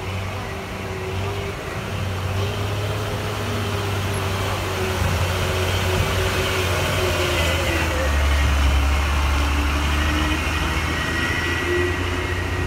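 Heavy diesel engine of a tandem-axle dump truck pulling slowly over a muddy climb. It gets louder as the truck comes close, loudest about two thirds of the way in, and its pitch wavers as the throttle changes.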